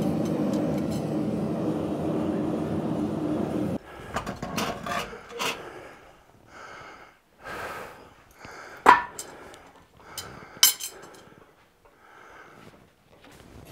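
A steady roar that stops abruptly about four seconds in, followed by scattered clanks of forging tongs and a hot steel tube against a cast-iron swage block, with two sharp metallic clinks, one in the middle and one a couple of seconds later.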